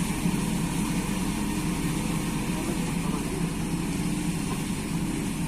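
Heavy diesel machinery engine running steadily, a constant low hum with no change in revs.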